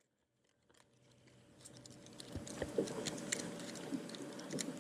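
Light clicking and rattling of fishing tackle being handled, over a faint steady hum; the sounds start about a second and a half in after near silence.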